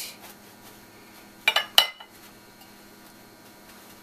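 Two sharp clinks of kitchen dishware about a second and a half in, a third of a second apart, the second ringing briefly.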